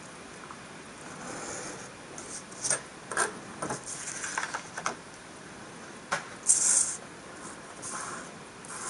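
Paper handling on a tabletop: short rubbing and scraping as a printed card sheet is slid and moved, with a few light clicks and taps from a steel ruler and hobby knife being picked up and set down.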